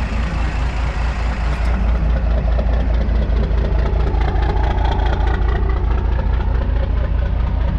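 12-valve Cummins 5.9-litre straight-six turbo diesel in a Dodge crew cab pickup idling steadily with an even pulse, getting a little louder after about two seconds. The exhaust, now moved clear of the transfer case, no longer rattles: the idle is nice and quiet with no clanging.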